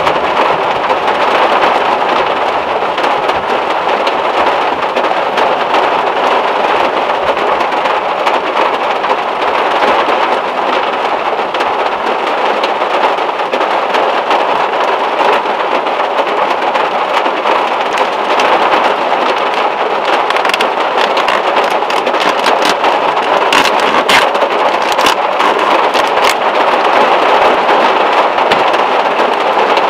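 Heavy rain drumming steadily on the steel roof of a VW Beetle, heard from inside the car. A few brief sharp clicks come in the last third.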